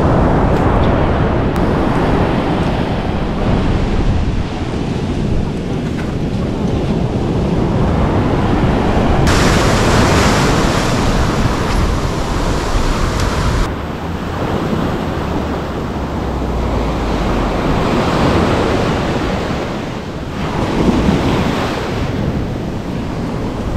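Sea surf breaking and washing up a sandy beach, with wind buffeting the microphone. Partway through, the sound turns brighter and hissier for a few seconds, then drops back.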